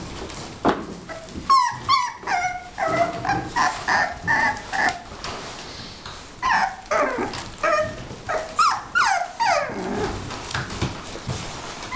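Six-week-old English bulldog puppies yelping and whining in a long run of short, high calls that each drop in pitch, several a second, dying away near the end.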